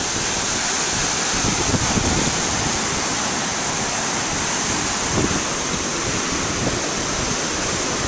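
Heavy ocean surf breaking over rocks, a steady roar of whitewater, mixed with wind buffeting the camcorder's microphone.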